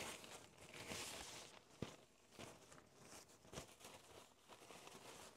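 Faint rustling of a sheet of paper being handled and unfolded, with one light click a little under two seconds in.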